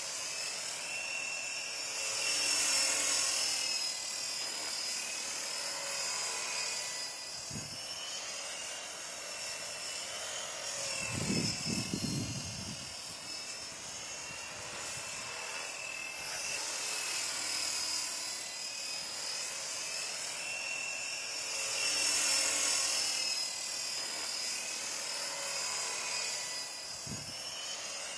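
Art-Tech Falcon 400 CCPM electric RC helicopter in flight: a high motor and gear whine over the rotor noise, its pitch gliding up and down as it manoeuvres. It grows louder twice, a few seconds in and again about two-thirds through, with a brief low rumble near the middle.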